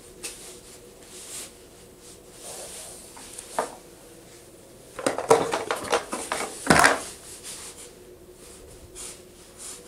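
Small hard plastic toy blocks knocking and clattering as a baby handles them: a single click, then a cluster of knocks and clatter about five to seven seconds in.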